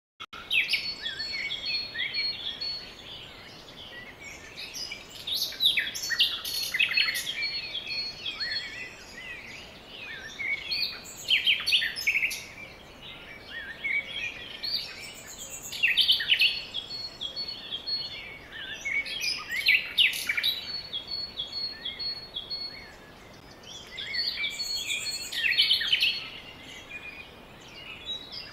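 Several songbirds chirping and singing, with quick repeated notes and trills coming in clusters every few seconds over a faint background hiss.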